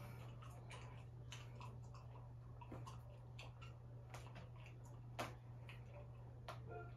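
Faint, irregular small clicks and light knocks, one louder knock about five seconds in, over a low steady hum.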